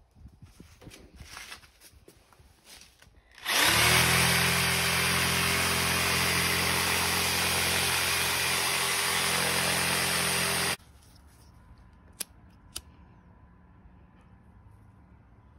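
Cordless power tool pressed against a wooden box of casting sand, vibrating the sand to settle it around the buried foam patterns. It spins up with a rising whine about three and a half seconds in, runs steadily for about seven seconds, and cuts off suddenly. Two sharp clicks follow near the end.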